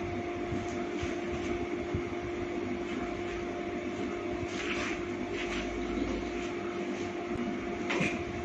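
Steady electrical hum of a room appliance, with a few brief soft rustles about five and eight seconds in as gloved hands massage the knee.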